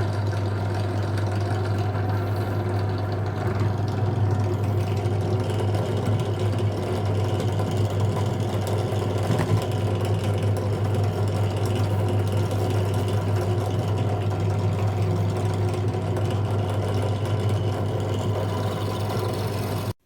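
ZJ4113 bench drill press running steadily with a strong low motor hum, the bit working into a bicycle pedal crank arm. The sound gets a little louder about three and a half seconds in and cuts off abruptly at the end.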